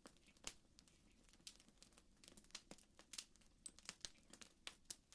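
Faint fireplace crackling: sparse, irregular sharp snaps and pops over near silence.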